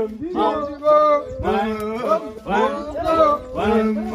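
Male singing: short rising-and-falling vocal phrases repeated over a steady low held note.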